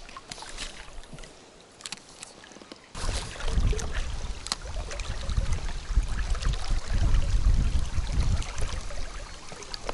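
River water rushing and sloshing around a wading angler. About three seconds in, a loud, gusting low rumble suddenly sets in on the microphone, and a few faint clicks come before it.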